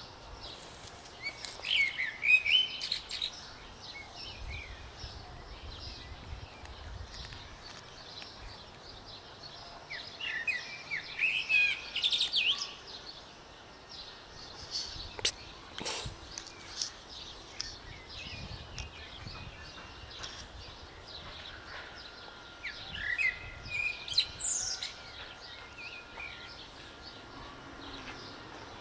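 Small songbirds chirping and twittering in three short bursts of quick, high chirps, with quieter background between them.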